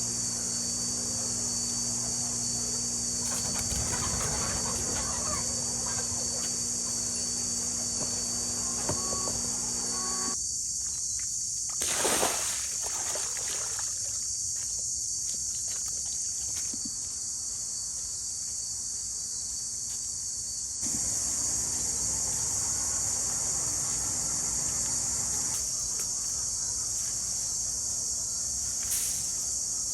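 Steady high chorus of crickets, with chickens clucking now and then and one brief louder flutter or call about twelve seconds in. A low steady hum underneath drops out for about ten seconds midway.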